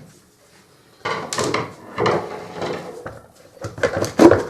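Plastic cover and housing parts of a vacuum cleaner being handled and worked loose during disassembly: a series of knocks and scraping clatters, the loudest about four seconds in.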